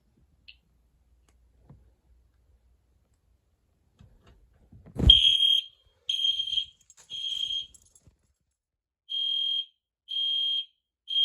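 EST Genesis electronic fire alarm horn sounding in the code 3 (temporal-three) pattern. It starts about five seconds in with a thump, then gives two groups of three short, even beeps on one high tone, with a pause between the groups.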